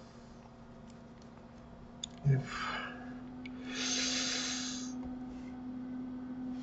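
A person breathing out noisily through the nose close to the microphone, with a soft bump just before it about two seconds in. A faint steady hum runs underneath.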